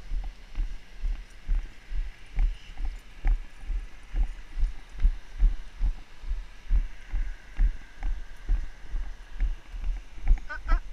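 A runner's footfalls on pavement, a steady rhythm of dull thumps about two and a half a second, carried into a body-worn camera.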